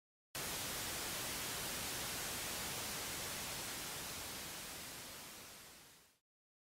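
Static hiss used as an intro sound effect: an even rush of noise, strongest in the highs, that cuts in suddenly, holds steady, then fades away over its last couple of seconds and stops.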